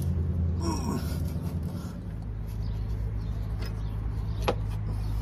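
A steady low hum runs throughout. A couple of short metallic clicks come from tools and hands working on a car's front brake caliper, one past the middle and one near the end.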